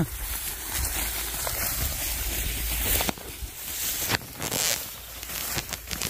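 Rice plants rustling and swishing as someone walks through a paddy field, with a few soft steps. Wind rumbles on the microphone, heaviest in the first half.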